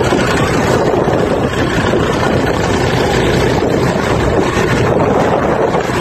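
A small work boat's engine running steadily under way, mixed with heavy wind noise on the microphone.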